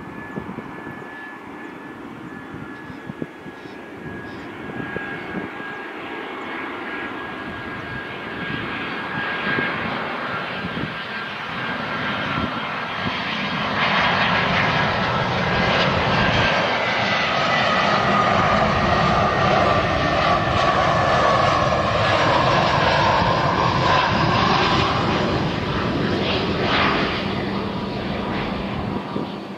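Airbus A320 jet airliner on landing approach, its two turbofan engines whining and rumbling as it nears and passes close by. The whine falls slowly in pitch throughout, and the roar swells sharply about halfway in and stays loud before easing slightly near the end.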